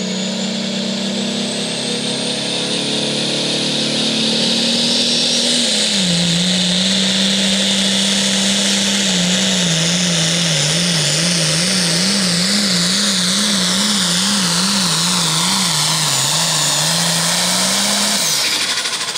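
Pulling tractor's turbocharged diesel engine running at full power, a loud steady note with a high turbo whine over it. About halfway through the engine pitch wavers quickly up and down for several seconds, and near the end the pitch falls and the sound dies away as the throttle comes off.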